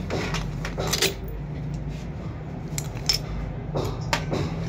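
A few light metallic clinks and taps of tools and engine parts being handled during engine assembly, over a steady low hum.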